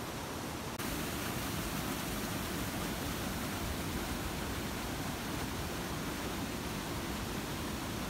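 Water rushing over a waterfall: a steady, even rush of noise that grows louder and brighter about a second in.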